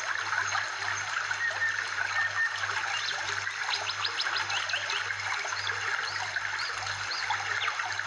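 Background soundtrack of steadily trickling water, with many quick high chirps and a soft, regularly pulsing low tone underneath.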